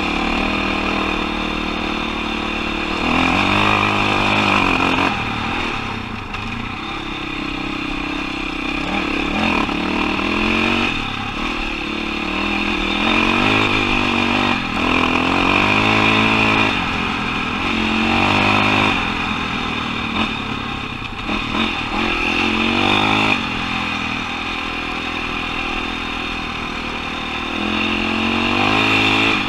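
KTM 525 XC-W dirt bike's single-cylinder four-stroke engine running under way, its pitch climbing and dropping again and again as the throttle is opened and closed.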